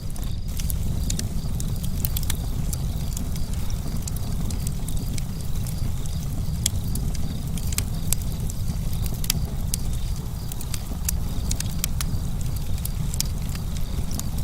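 Campfire burning: irregular sharp crackles and pops from the burning wood over a steady low rumble.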